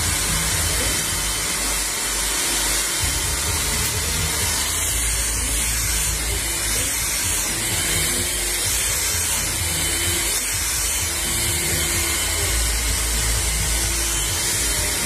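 Handheld hair dryer blowing steadily while drying hair, with music playing underneath.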